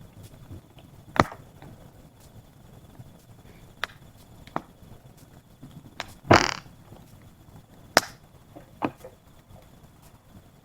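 Wood fire crackling, with about six sharp pops at irregular intervals over a low hiss; the loudest, longer pop comes a little past halfway.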